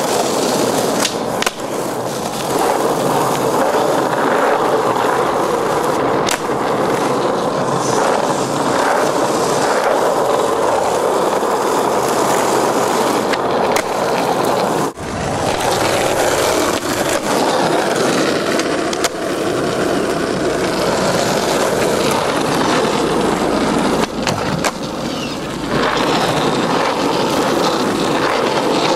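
Skateboard wheels rolling over asphalt, with several sharp clacks scattered through as the board's tail and deck hit the pavement on popped and landed flatground tricks.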